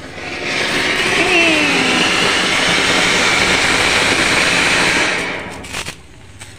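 Flower-pot ground fountain firework spraying a column of sparks with a loud steady hiss that builds in the first second and dies away about five seconds in.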